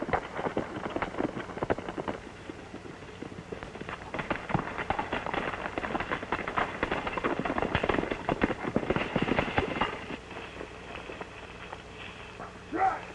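Horses galloping: a dense clatter of hoofbeats that swells about four seconds in and fades after about ten.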